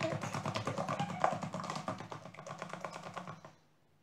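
A spoon beating thin crepe batter by hand in a plastic bowl: fast, even clicking and tapping against the bowl, stopping about three and a half seconds in.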